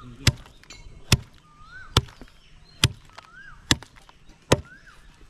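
Heavy blade chopping a pig's head, six hard, evenly paced blows a little under a second apart.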